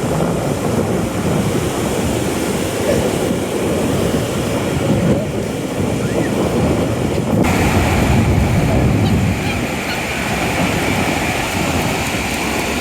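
Steady rushing rumble of wind buffeting the microphone, with surf breaking on the beach behind it; a brighter hiss joins about halfway through.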